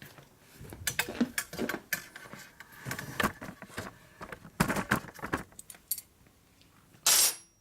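Metal hand tools clinking and rattling in a series of light, irregular clicks, as wrenches are picked through and handled, with a brief louder clatter near the end.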